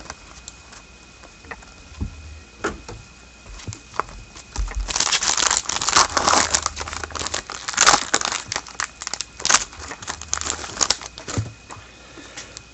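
A few light clicks, then the wrapper of an Upper Deck hockey card pack being torn open and crinkled for several seconds, starting about five seconds in.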